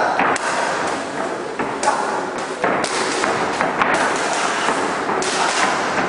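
Boxing gloves striking focus mitts in irregular thuds and slaps, some in quick succession, over a steady background noise.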